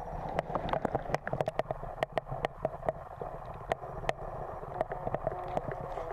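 Water as heard by an underwater camera in shallow water: a steady gurgling wash with many sharp irregular clicks and pops.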